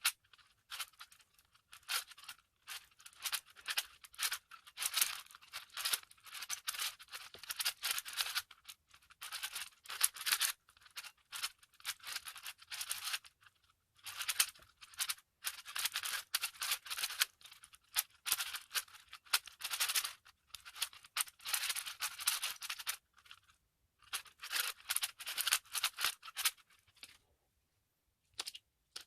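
Plastic 4x4 speed cube being turned fast by hand: rapid runs of clicking and rattling layer turns, broken by brief pauses, near the middle and toward the end, while the solver looks at the next step.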